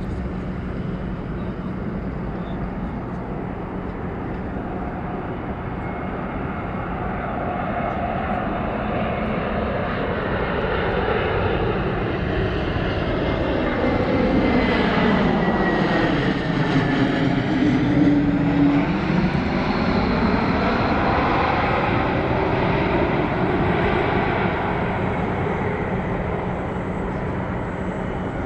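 Jet airliner's engines passing close by: the noise builds to its loudest about halfway through, with a whine that falls in pitch as the aircraft goes past, then slowly fades.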